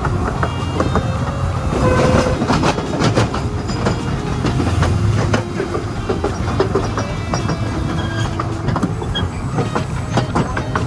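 Small open trolley cars rattling along a narrow-gauge track, with a steady rumble and a run of sharp clacks as the wheels pass over the rail joints, making a rough, rickety ride.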